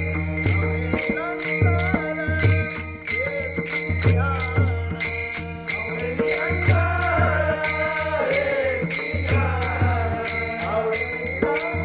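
Marathi Varkari devotional bhajan: a voice singing a melismatic line over steady strokes of small hand cymbals, several a second, with a recurring low drum beat beneath.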